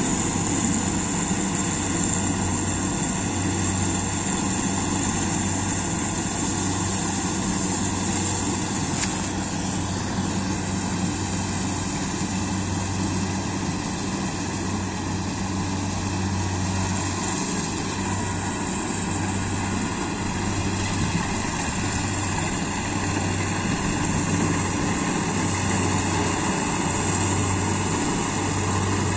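Kubota Harvesking DC-68G combine harvester running steadily while cutting rice: a continuous engine drone that wavers slightly in strength, with a steady hiss of the threshing machinery above it.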